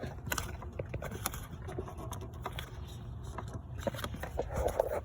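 Scattered small clicks and scraping of plastic clips and intake parts being worked loose by hand, with a short scrape just before the end, over a steady low background rumble.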